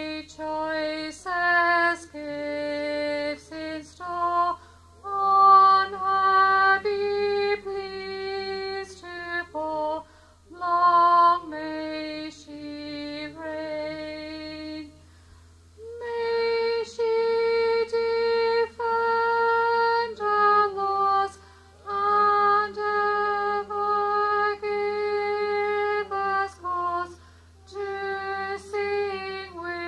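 A woman's voice singing unaccompanied: slow phrases of clear, held notes, with a pause of about a second halfway through before a long held note.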